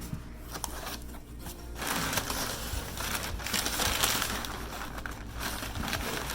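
Cardboard shipping box being pulled open and its packing material crinkling and crumpling, growing dense and busy about two seconds in.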